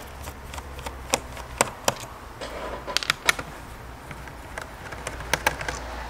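Scattered light clicks and taps from hands handling an HP 255 G5 laptop's plastic bottom case during disassembly, over a low steady hum.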